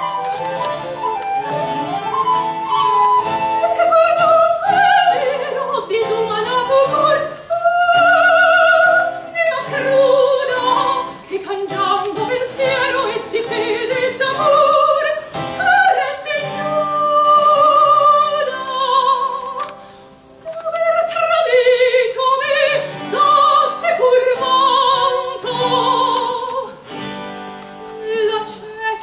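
A female classical singer sings late-16th-century music in an operatic style, with vibrato on the held notes, over a small instrumental accompaniment.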